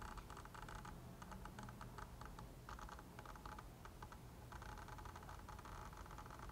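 Sigma 18-35mm f/1.8 lens's autofocus motor driving focus in short whirring bursts, three of them, with quick rapid clicks between, picked up faintly through a camera-mounted mini shotgun microphone.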